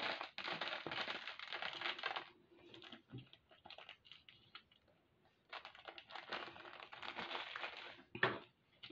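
Plastic bead packaging crinkling and rustling as it is handled. There are two dense spells, one at the start and one from just past the middle, with lighter clicks between.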